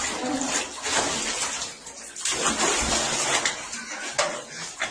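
Water running and splashing in a bathtub while a pet is being bathed.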